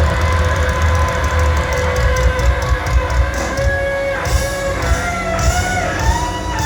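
A live rock band playing loudly, led by electric guitar over a heavy bass.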